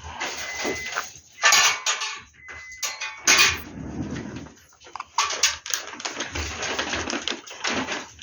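Dishes and utensils clattering and knocking as they are handled, with two short steady high beeps in the first three seconds.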